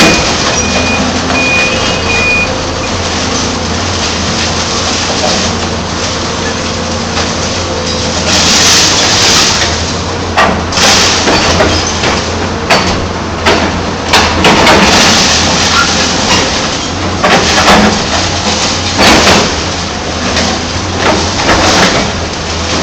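Hyundai 290 LC-9 excavator and dump truck diesel engines running steadily, with a truck's reversing beeper sounding for the first couple of seconds. From about eight seconds in come loud, irregular crashes and rushes of material, as a loaded bucket of rock and earth is dumped into the truck's bed.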